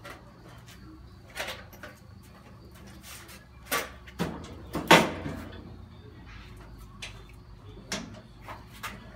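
A string of separate knocks and clunks, the loudest about five seconds in, over a low steady hum.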